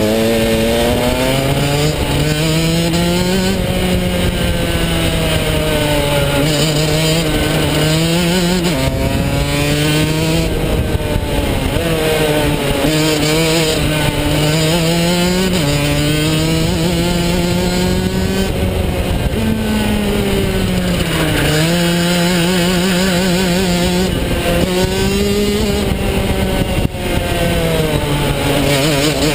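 A shifter kart's Rotax DD2 125cc two-stroke engine heard onboard under hard driving. Its pitch climbs and falls over and over as the kart accelerates out of corners and lifts into them, with a few sudden jumps in pitch.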